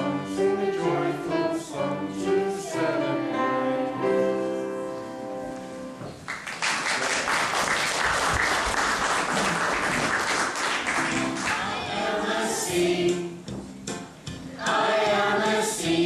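A group of children singing a song, which ends about six seconds in and is followed by about six seconds of applause from the congregation. Singing starts again near the end.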